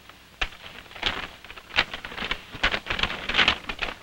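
Stiff paper rustling and crackling in irregular bursts as a large paper poster is pulled off and crumpled by hand.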